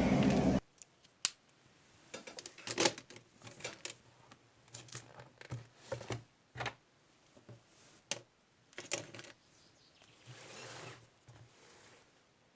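Background music cuts off about half a second in. Then come scattered small clicks, taps and rustles of objects being handled close to the microphone, with a longer soft rustle near the end.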